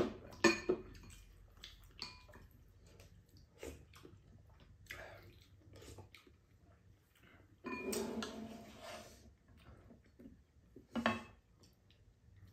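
Table-eating sounds: spoons and chopsticks clinking on ceramic bowls and a pan, with sharp clinks at the start and about half a second in and another about eleven seconds in. A longer slurp of soup about eight seconds in.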